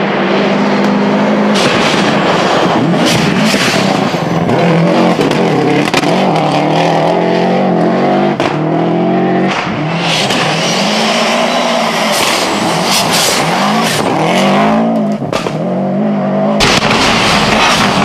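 Subaru Impreza rally car's turbocharged flat-four engine revving hard, its pitch climbing and dropping again and again through gear changes as it drives past at speed on a dirt stage. The sound changes abruptly near the end.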